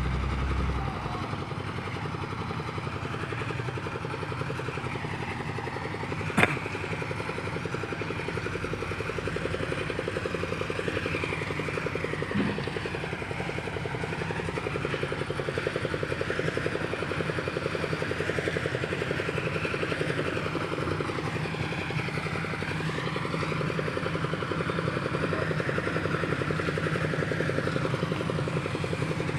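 A small engine running steadily, with one sharp knock about six seconds in.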